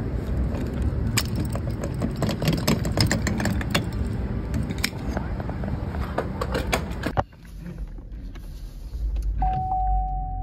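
Gasoline pumping through a gas-station nozzle into a car's filler neck: a steady rushing with many sharp clicks, which stops abruptly about seven seconds in. Near the end a steady single electronic tone starts.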